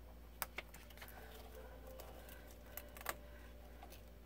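Faint handling of paper and card: a folded booklet being drawn out of a cardboard deck box, with a few sharp little clicks and taps.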